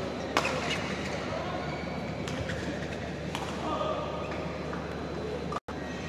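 Badminton rally: a sharp racket hit on the shuttlecock near the start, then two lighter hits a second or two apart, over voices in the background.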